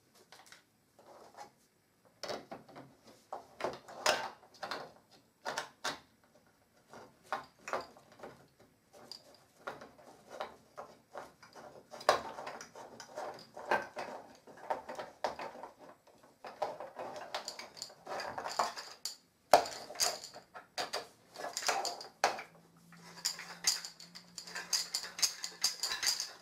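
Wooden parts of a baby play gym knocking and clicking together as it is fitted by hand: wooden rods pushed into wooden joint pieces, with the beads on them clattering. The knocks come irregularly, many a second at times.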